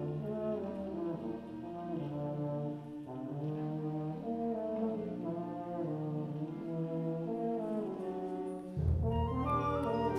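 Junior-high concert band playing slow, held chords led by brass, with French horns and trombones prominent. About nine seconds in, the low instruments swell in louder.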